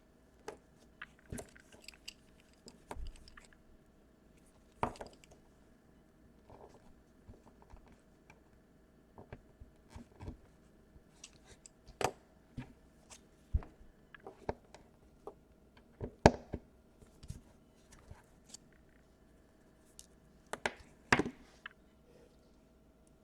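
Irregular small clicks, taps and crunchy scrapes of a tool picking hardened glue off the wires of a laptop's DC power jack, with a few sharper taps now and then.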